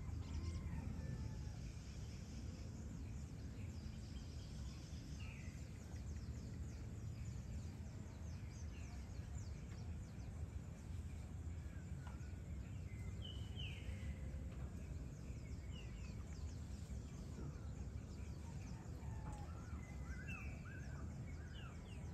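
Evening outdoor ambience: a steady low background rumble with faint high chirping, and short bird calls now and then, including a few near the end.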